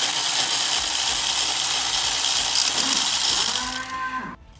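Power ratchet with a 13 mm socket running for about three and a half seconds as it spins the nut off the starter's positive cable terminal, then winding down with a short falling whine before it stops.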